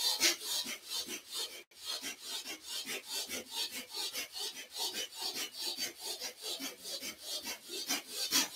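Bhastrika (bellows-breath) pranayama: forceful, rapid in-and-out breathing through the nose, an even train of about four breath strokes a second, with a momentary break a little under two seconds in.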